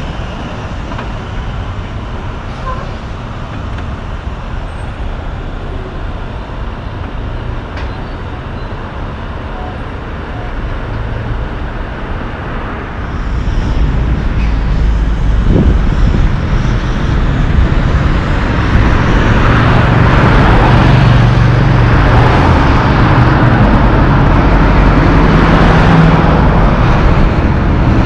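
Road traffic with heavy diesel trucks passing: a steady rumble of engines and tyres. It grows louder about halfway through as a big truck pulling two trailers comes by close, and its engine is loudest near the end.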